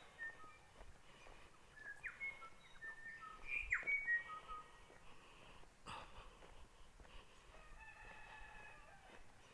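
Birds calling outdoors: a string of short whistled notes and quick up-and-down slides, busiest and loudest about three to four seconds in, with another run of calls near the end. A single sharp click comes about six seconds in.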